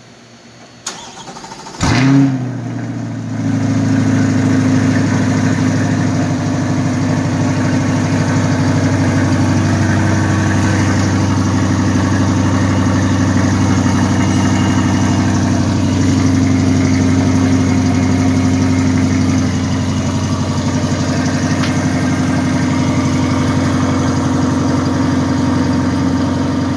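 Chevrolet C8 Corvette Stingray's 6.2-litre V8 cold-starting: a small click, then the engine fires with a loud flare about two seconds in, dips briefly and settles into a steady cold idle, easing slightly after about nineteen seconds.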